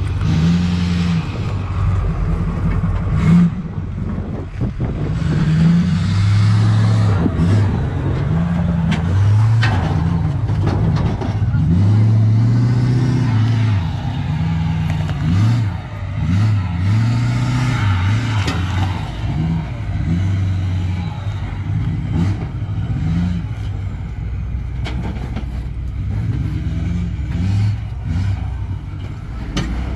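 Ford F-450 dually's Power Stroke diesel engine revving up and dropping back again and again as the truck crawls up a rock course under load. Scattered sharp pops and knocks come through, which the owner puts down to a broken sway bar bushing.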